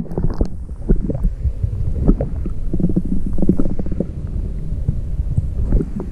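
Underwater audio from a camera held just below the water's surface: a steady low rumble of water against the submerged camera, broken by many irregular dull knocks.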